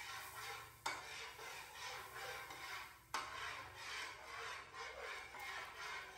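A metal spatula scraping and stirring melted butter around a nonstick frying pan in repeated strokes, with two sharp knocks, about one second and three seconds in.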